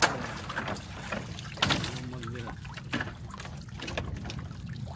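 Small boat on the water: a steady low rumble with water noise, broken by sharp knocks, the loudest at the very start and just under two seconds in.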